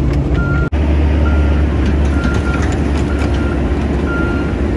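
Cat 307C mini excavator's diesel engine running steadily from inside the cab while a reversing alarm beeps about once a second, as the machine pushes soil back into a tile trench with its blade.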